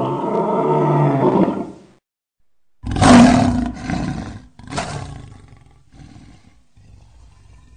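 Tiger roaring: one long roar, then a short pause, then two more roars about a second and a half apart, the first of these the loudest. The roars give way to fainter low growls near the end.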